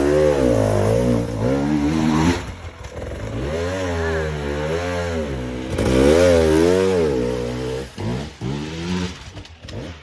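Dirt bike engine revving up and down in three long surges under load as it climbs a steep, rocky gully, easing off near the end.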